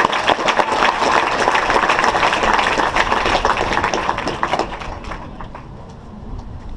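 Crowd applauding, a dense patter of many hands clapping that dies away about five seconds in to a few scattered claps.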